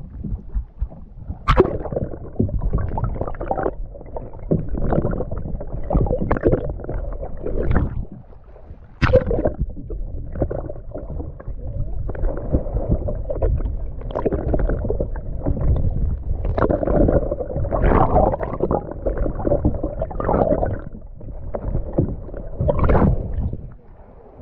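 Sea water sloshing, gurgling and splashing around a camera mounted low on a boat's side as it dips in and out of the waves, giving a muffled, churning rumble with sharper splashes now and then.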